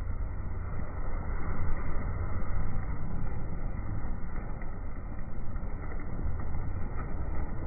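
Steady roar of Niagara Falls close up from the water, a deep low rumble, with wind buffeting the microphone.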